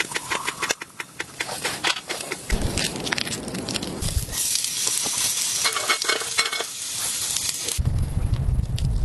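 Irregular crackling and clicking with a sizzling hiss in the middle stretch, and a low rumble coming in near the end.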